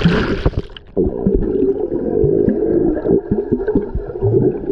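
A splash, then from about a second in the muffled sound of swimming-pool water heard from under the surface, with bubbling and gurgling from a swimmer blowing bubbles.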